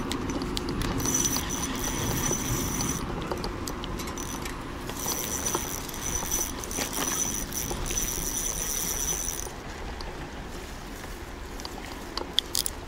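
Spinning reel whirring in spells as line is cranked in during the fight with a large trout, with a few sharp clicks near the end. Under it, the steady low rush of the fast river.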